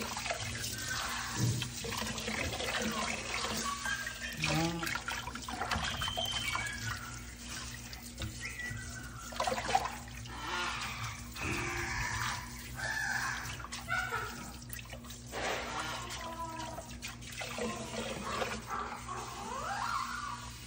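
Water running from a pull-down kitchen faucet sprayer into a sink and splashing in the bathwater, with short pitched sounds over it.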